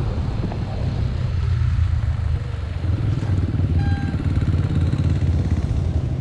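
Petrol dirt bike engines running at low speed with a steady low pulsing, getting louder about three seconds in as a bike pulls up alongside.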